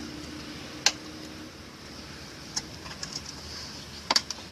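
Sharp clicks and light knocks of hard plastic and metal parts being handled as plastic wedges are worked loose from a washing machine's spin-tube assembly: one sharp click about a second in, a few faint ones, then a quick cluster of clicks near the end, over a steady hiss.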